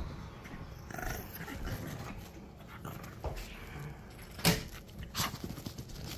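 A Shih Tzu and a Shih Tzu–Pomeranian cross play-fighting, growling and scuffling on a blanket. A short sharp sound about four and a half seconds in is the loudest moment, with another shortly after.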